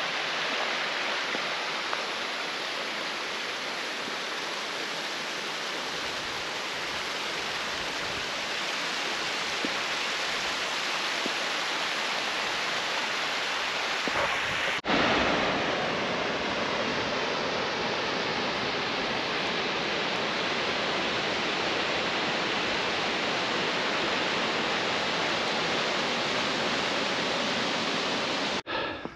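Rushing water of a stream or waterfall, a steady even rush. It breaks off sharply about halfway through and resumes at much the same level.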